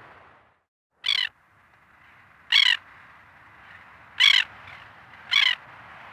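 A bird giving four short, harsh calls about a second or so apart over a steady hiss of forest ambience; the track drops out briefly just before the first call.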